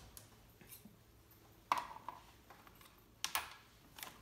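Two brief knocks and rattles of hard plastic Nerf blaster parts being handled in a cardboard box, one a little under two seconds in and another just past three seconds, with quiet room tone between.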